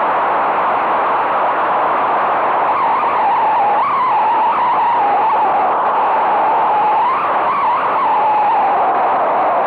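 Loud, steady rush of airflow over a tandem hang glider gliding down to land, with a whistle that wavers up and down in pitch, strongest in the middle of the stretch.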